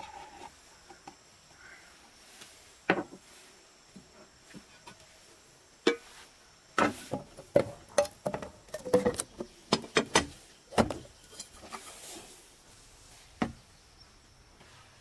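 Metal paint tins being handled and knocked against a wooden table: a run of sharp, irregular clacks, thickest around the middle, with single knocks before and after.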